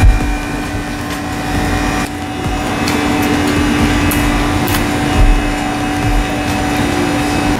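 A steady mechanical hum and whir with a rushing noise under it, like a motor or fan running, with a few faint clicks over it; the hum cuts off suddenly at the end.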